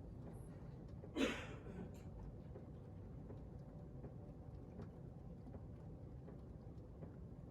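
Steady low noise of pouring rain, with one brief sharp sound about a second in.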